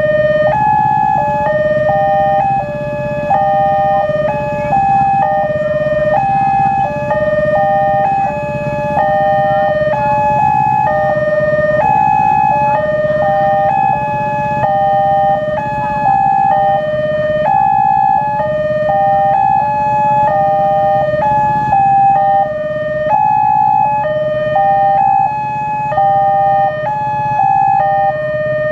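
Railway level-crossing alarm: an electronic two-tone signal switching back and forth between a high and a low note about every half second. The crossing's double alarm sounds slightly out of step, so the notes overlap. A low steady rumble runs underneath.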